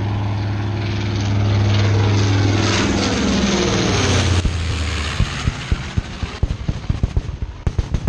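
Low flyover by a B-17 bomber with four piston engines: a loud, steady propeller drone that swells, then drops in pitch as it passes overhead about three seconds in. From about halfway, a rapid run of sharp pops and crackles cuts through the fading drone.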